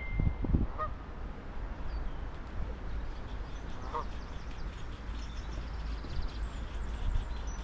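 Wind rumbling on the microphone, with scattered faint bird chirps and a short bird call about four seconds in.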